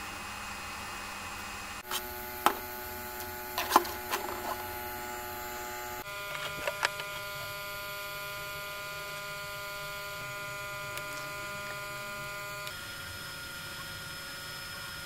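Steady electric hum from a running 3D printer's motors and fans, with a handful of sharp plastic clicks and knocks between about two and five seconds in.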